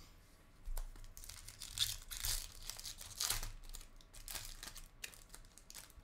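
Foil wrapper of a trading card pack being torn open and crinkled by hand, in a run of rustling, crackling tears over a few seconds, then a few small clicks as the cards come out.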